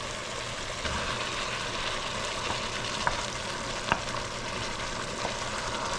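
Tomatoes and jalapeños sizzling steadily in a hot pan as they roast, with a couple of short clicks.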